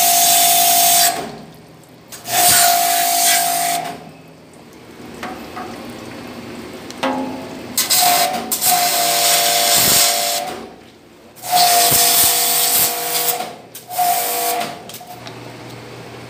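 Pressure washer spraying water onto a stainless steel table in several bursts of one to three seconds, stopping between them. Each burst is a loud hiss of spray over a steady motor tone that starts and stops with it.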